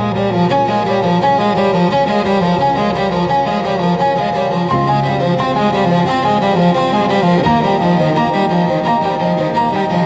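Slow, deep cello music of long bowed notes, over the faint crackle of a fireplace.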